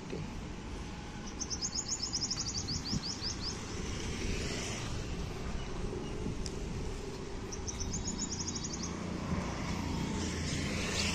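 A bird calls twice, each a fast trill of rapid high notes lasting a second or two, a few seconds apart. Behind it runs a steady low rumble of road traffic.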